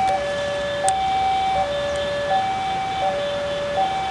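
Electronic railway level-crossing warning alarm sounding a steady two-tone high-low signal, each tone held about three quarters of a second, warning that a train is coming.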